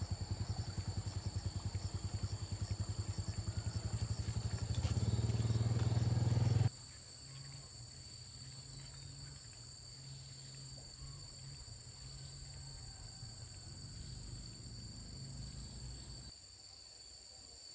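A small engine running with a rapid, even beat, getting louder about five seconds in, then cutting off abruptly about seven seconds in. After that, insects keep up a steady high drone over a low hum.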